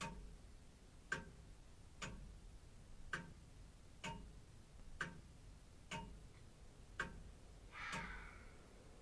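Grandfather clock ticking about once a second, with an alternating tick and tock. A brief soft rushing sound comes near the end.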